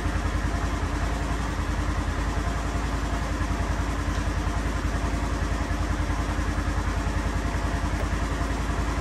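Polaris Ranger 1000 XP's twin-cylinder engine idling steadily, warming the coolant up to temperature after the cooling system has been bled.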